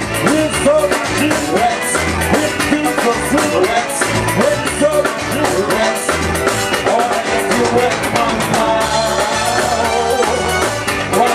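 Loud live band music: a singer over a drum kit with a steady beat, with a few held instrumental notes coming in near the end.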